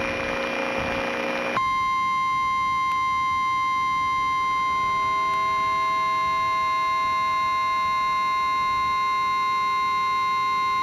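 A hissing noise bed with a faint hum, cut off about one and a half seconds in by an Emergency Alert System attention tone: a single steady, high-pitched tone near 1 kHz that holds unchanged.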